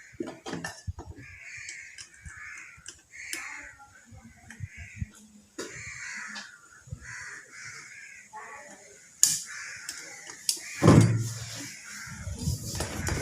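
A bird calling over and over in short, harsh caws, with scattered clicks and knocks of parts and tools being handled, and a louder clatter about eleven seconds in.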